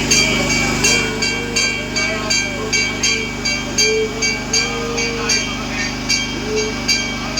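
A metal hand bell rung continuously at about three strokes a second, its bright ringing tones steady throughout, the kind rung during a temple puja. Under it are a steady low hum and snatches of a chanting voice.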